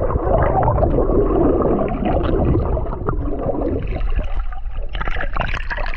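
Muffled underwater sound of shallow sea water heard through a submerged GoPro: a steady low rumble and gurgling, with a few sharp crackles near the end.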